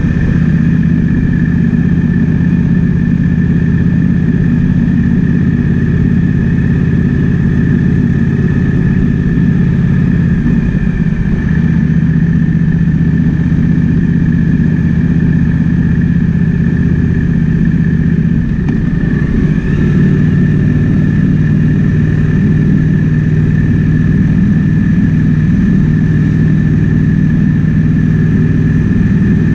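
Triumph Speed Twin 1200's parallel-twin engine running steadily under way, with wind rushing past. The engine note shifts about ten seconds in and again near twenty seconds in.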